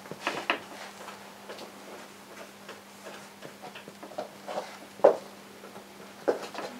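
Paintbrush dabbing oil paint onto a stretched canvas: a few irregular soft taps, the loudest about five seconds in.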